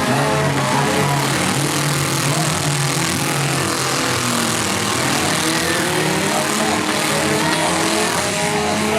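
Several four-cylinder demolition derby cars' engines running at once, with pitches rising and falling as they rev, over a steady wash of mechanical noise.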